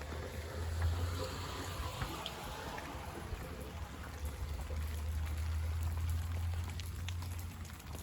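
Rain falling, with water running and splashing and scattered sharp drips, over a steady low rumble.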